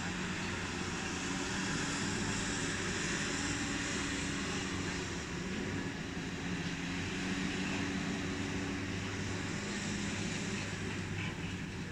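Heavy diesel machinery running steadily: a low engine drone with a steady hum, under a broad hiss.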